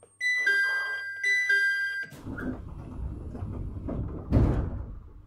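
Electronic two-tone door chime on a JR East 701 series train, a high note then a lower one, sounding twice. About two seconds in it gives way to a low rumble with a sudden start, and a loud thud comes near the end.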